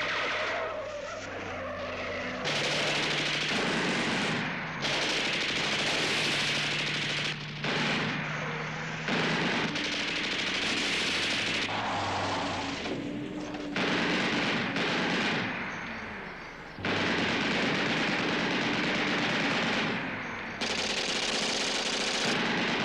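Machine-gun fire and gunshots over running vehicle engines, a film battle soundtrack whose mix changes abruptly every few seconds.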